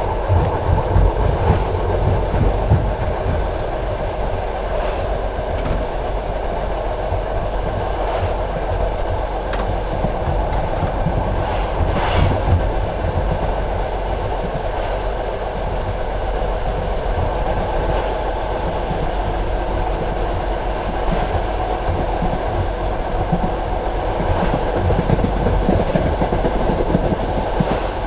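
Passenger railway carriage running at speed: a steady rumble of wheels on the rails with the clack of wheels over rail joints, and a few sharper knocks now and then.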